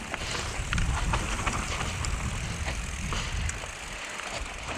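Mountain bike rolling along a dirt trail: a steady low rumble of tyres and wind on the microphone, with scattered sharp clicks and rattles from the bike.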